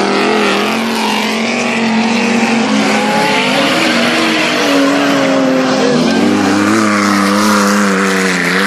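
Stock cars racing on a dirt track: several car engines running hard at high revs, their pitch drifting up and down as they slide through a bend, over a steady haze of tyre and dirt noise. A deeper engine note joins about six seconds in as another car comes close.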